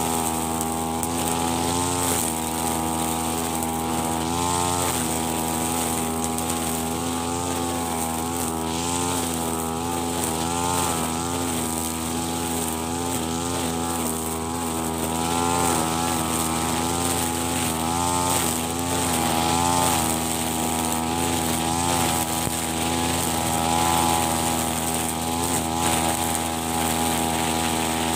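Brush cutter engine running steadily while cutting grass, its pitch dipping and rising repeatedly as the cutting head meets the grass.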